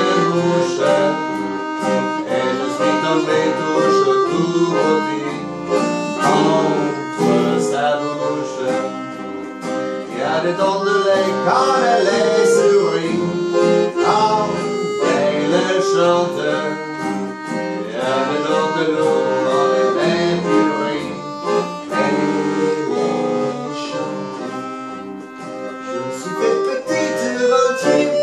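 Accordion and acoustic guitar playing a tune together, the accordion carrying sustained chords and melody over steady guitar strumming.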